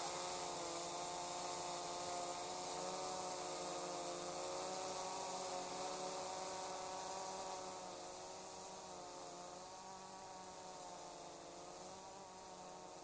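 Quadcopter drone's propellers buzzing high overhead, a steady several-toned hum that wavers slightly in pitch and grows fainter after about eight seconds.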